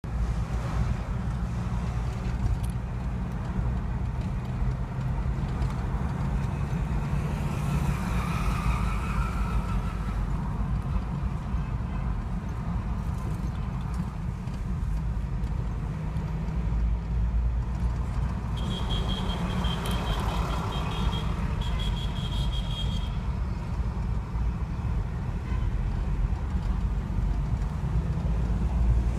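Steady low rumble of a vehicle's engine and tyres, heard from inside the cabin while driving. A high beeping tone comes and goes for a few seconds about two-thirds of the way through.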